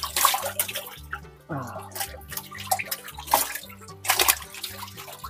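Shallow muddy water sloshing and splashing in several short bursts as a hand net scoops through a nearly drained pond and the catfish in it thrash, over background music with steady low notes.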